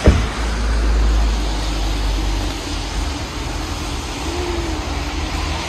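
Steady outdoor rumble and hiss, like wind buffeting the microphone or traffic, with one sharp knock right at the start.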